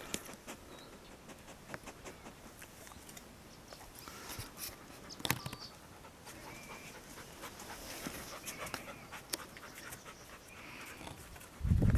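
A dog panting, with scattered small clicks and taps. A loud low rumble comes in just before the end.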